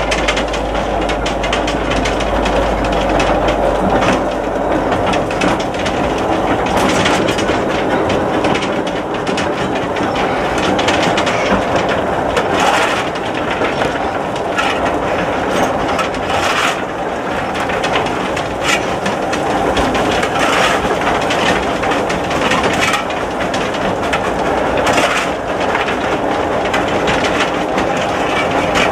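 Cab ride on the footplate of a Corpet-Louvet 0-4-0 steam tank locomotive under way: a steady din of wheels clattering over the rails and the cab rattling and clanking, with many sharp knocks throughout.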